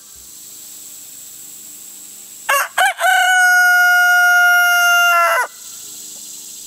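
A rooster crowing once, loud: two short opening notes about two and a half seconds in, then one long held note that cuts off sharply about three seconds later.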